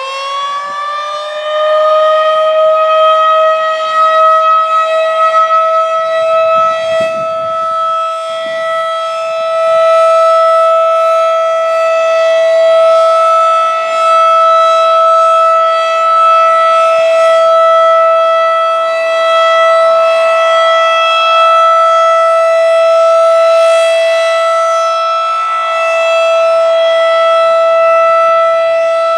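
Federal Signal 2001-DC electromechanical outdoor warning siren, battery-powered, finishing its wind-up and then holding one steady, loud wail. The pitch levels off about two seconds in, and the level swells and fades gently after that.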